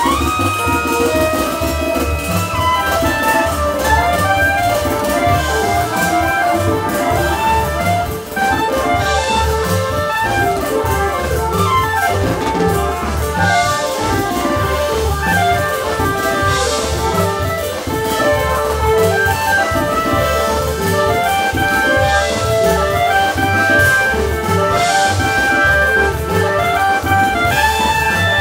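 Jazz band playing an instrumental: a drum kit keeps time under busy, shifting melodic lines.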